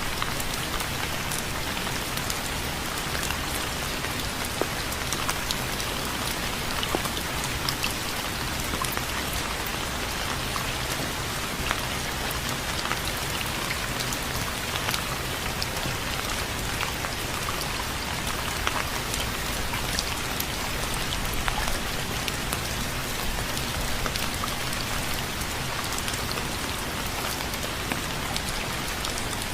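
Steady rain falling on a surface, with many small drops pattering throughout at an even level.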